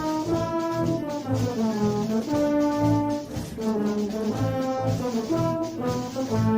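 Instrumental music led by brass, with held notes changing pitch about once a second over a regular low pulse.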